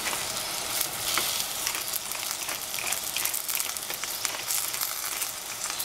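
Oyster mushrooms and cabbage greens frying in a stainless steel saucepan, a steady sizzle with scattered crackles.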